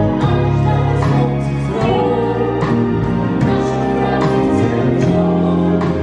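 A group of singers singing a song together over keyboard accompaniment, amplified through a PA system.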